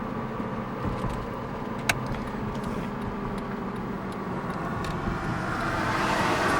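Steady road and engine noise heard from inside a moving car, with a single sharp click about two seconds in and a swell of louder noise building near the end.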